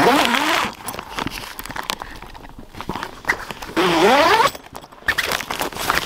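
Tent door zipper being pulled in quick strokes, one right at the start and a longer rising one about four seconds in, with the tent fabric rustling and being handled between them.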